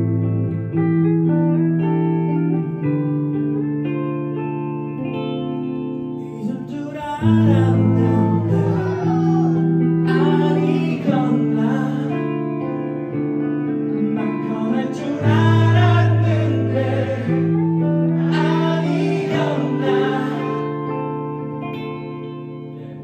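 A band playing live: sustained guitar chords, with a singer coming in about seven seconds in and singing over them, pausing briefly midway, before the music fades near the end.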